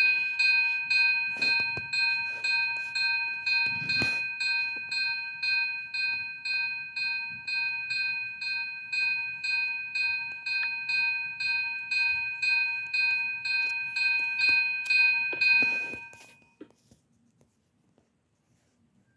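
Fire alarm signal striking a ringing metallic tone over and over at an even pace of about two and a half strokes a second. It stops about sixteen seconds in.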